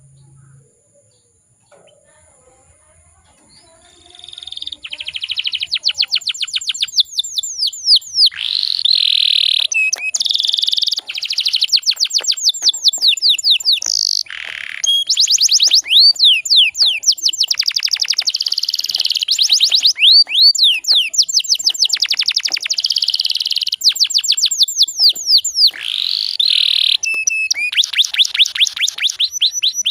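Domestic canary singing long, rapid trills of fast repeated down-sweeping notes, starting about four seconds in, with short breaks between rolls.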